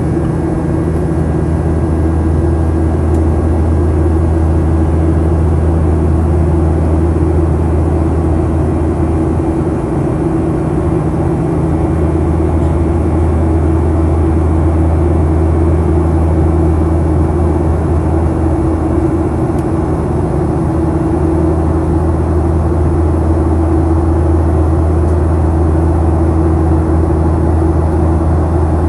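Cabin noise of a Boeing 737-800 in flight, heard from a window seat over the wing: its CFM56-7B24 turbofan engines and the airflow make a loud, steady low drone with a hum above it.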